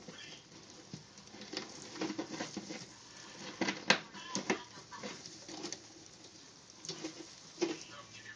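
Irregular hard clacks and knocks of tortoise shell striking shell as a courting male bumps and mounts a resisting female, with scuffling of feet in bark-chip substrate. The loudest knocks come a little under halfway through.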